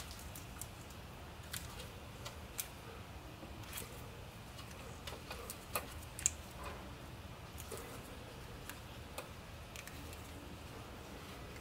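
Scattered light clicks and taps from a gloved hand working a VANOS solenoid into place in a BMW engine, with a sharper click about six seconds in, over a faint low hum.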